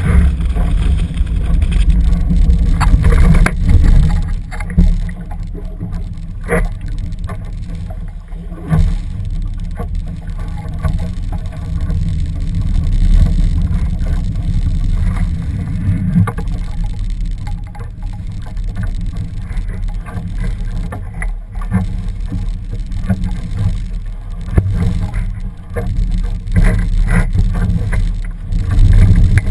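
Wind buffeting the microphone of a camera on a Laser sailing dinghy, a heavy uneven rumble, with water splashing against the hull and scattered knocks.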